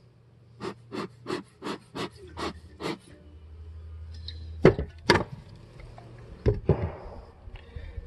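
Hands working at a wooden horizontal beehive as the glass jar feeder of sugar syrup is lifted off: a quick run of about eight short scuffs, about three a second, then a few sharp knocks of wood and hive parts being moved in the second half.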